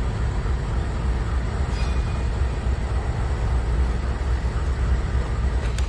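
BNSF GE diesel-electric road locomotives rumbling steadily as they pull slowly ahead, with a brief faint squeal about two seconds in and a sharp click near the end.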